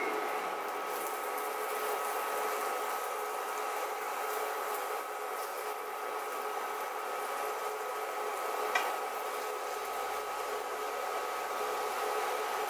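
Cornstarch-coated chicken pieces sizzling in hot oil in a nonstick skillet, with a thin steady whine underneath. A single click about nine seconds in.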